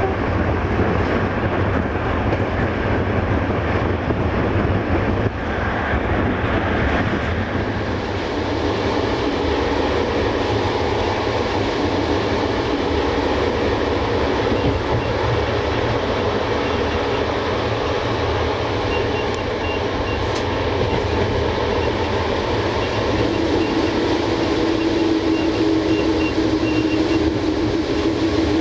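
Passenger train running along the track: a steady rumble of coach wheels and running gear on the rails, with a steady hum joining in about three quarters of the way through.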